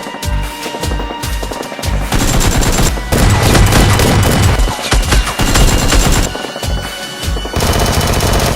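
Rapid, repeated gunfire, machine-gun-like bursts throughout, over background music.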